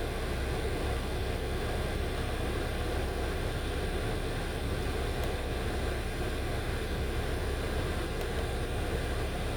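2008 Honda Accord's 2.4-litre inline-four idling with the air conditioning running: a steady, unbroken drone. It carries a constant hum that the mechanic puts down to the wrong power steering fluid or a clogged filter in the power steering reservoir.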